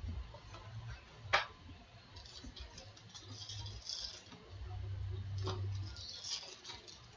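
Baseball trading cards being handled and sorted on a table: a sharp click about a second in, another about two-thirds of the way through, and light crisp rustling and sliding of card stock in between, over a low steady hum.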